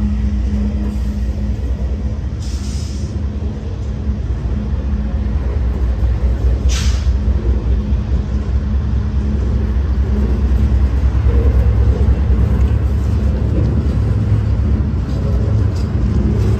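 Double-stack intermodal freight cars rolling past at close range: a steady low rumble of steel wheels on the rails, with two short hisses, about two and a half and seven seconds in.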